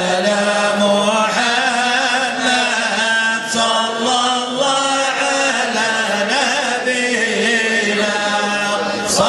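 Men's voices chanting Sufi madih, devotional praise of the Prophet, in a melodic chant over a steady low held note. A brief sharp click comes near the end.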